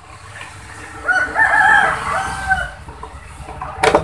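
A loud, long animal call with several pitched parts that rise and fall, lasting about a second and a half, followed by a sharp click near the end.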